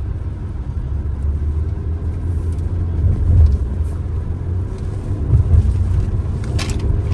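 Cabin drone of a 2024 Hyundai Creta on the move: a steady low rumble from the road and its 1.5-litre non-turbo petrol engine, swelling a little at times. A short sharp tick comes near the end.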